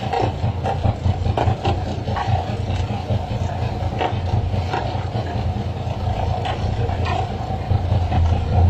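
A fishing boat's engine running with a steady low rumble, under irregular slaps and knocks as hooked skipjack tuna are swung aboard and hit the wooden deck.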